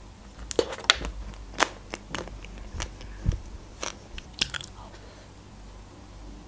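Close-up mouth sounds of biting into and chewing a chocolate-coated ice cream bar: the hard chocolate shell crackles and crunches in a quick run of sharp cracks. It goes quiet after about four and a half seconds.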